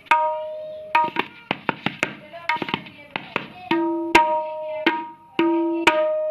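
Tabla with a freshly made head tuned to D sharp, played as a tone check. The first stroke rings on with a clear steady pitch, followed by a quick run of strokes in the middle. Several more ringing strokes follow, two of them sounding a lower note.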